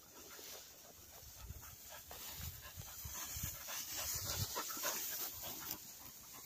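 Cocker spaniel panting hard in quick, uneven breaths after a retrieve, growing louder in the second half.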